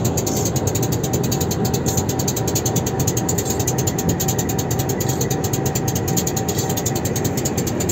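Steady, rapid mechanical clatter of about ten ticks a second, with a faint steady whine underneath that fades near the end.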